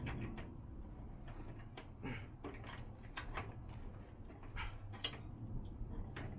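Scattered clicks and knocks of metal parts being handled and pushed while a wheel is fitted into a small motorcycle's frame, over a low steady hum.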